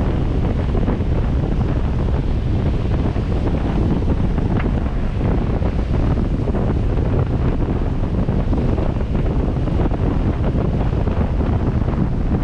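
Wind buffeting the microphone of a camera mounted outside on a moving 4x4, a steady low rumble with the vehicle's driving noise mixed in.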